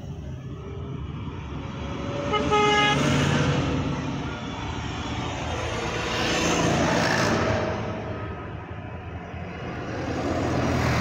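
Lit-up trucks passing on the road, each going by in a rush that swells and fades, three times in all. A horn gives one short toot about two and a half seconds in.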